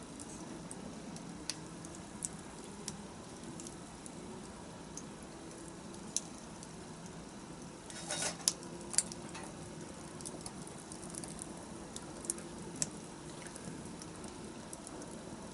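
Wood fire burning with a steady low hiss and scattered sharp crackles and pops, with a quick run of crackles about eight seconds in.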